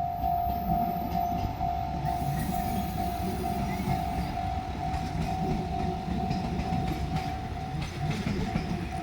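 Japanese level-crossing warning bell ringing with an even, repeating ding, over the low rumble of a diesel train running past.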